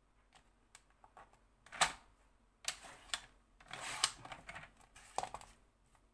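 Sliding paper trimmer cutting a sheet of patterned paper: a sharp click just before two seconds in, then the blade head scraping along its rail through the sheet, amid light clicks and taps as the paper is handled.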